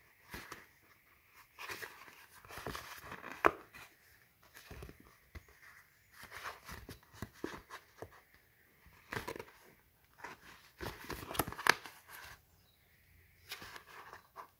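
Scored polypropylene sheet rustling and crinkling in bursts as it is folded by hand along its score lines, with sharp clicks as creases are pressed, the loudest a few seconds in and again late on.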